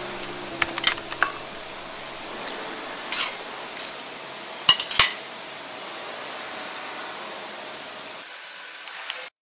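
Silicone spatula stirring a thick, creamy salad dressing in a ceramic bowl, with scattered light clicks and two sharp clinks of a metal spoon against the bowl about five seconds in.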